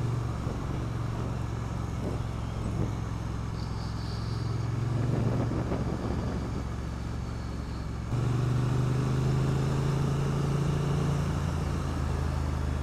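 Triumph Street Twin 900's 900 cc parallel-twin engine running steadily under a rider at road speed. About eight seconds in its note suddenly steps up and gets louder.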